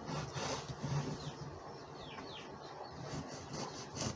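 A chef's knife quietly slicing through a red onion on a plastic chopping board, with faint light ticks in the first second. A few faint, short, falling chirps come in about one and two seconds in.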